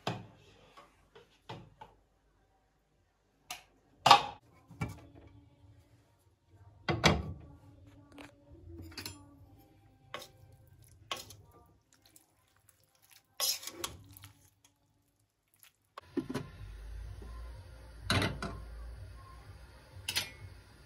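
Kitchen clatter: dishes, pots and utensils being set down and knocked together in a dozen separate clinks and knocks. A steady low hum comes in about three-quarters of the way through.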